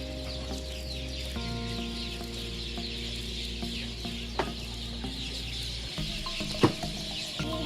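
Bird sound effect: many birds chirping and twittering over steady low sustained tones that shift to a new set about a second and a half in, with a few short sharp calls or clucks breaking in later.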